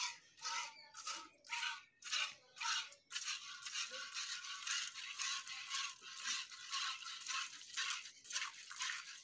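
Milk squirting from a cow's teats into a steel bucket during hand milking: rhythmic hissing squirts, about two a second at first, then quicker and running together from about three seconds in.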